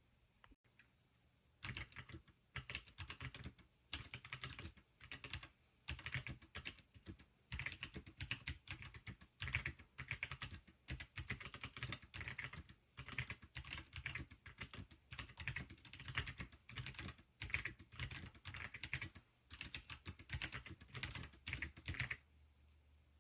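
Fast, continuous typing on a Pinky4 split keyboard: a dense run of key clicks with short pauses, starting about two seconds in and stopping near the end.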